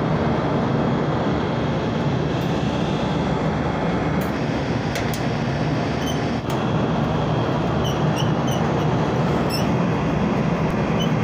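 Steady mechanical drone with a low hum, with a few sharp clicks and some short high chirps about two-thirds of the way in.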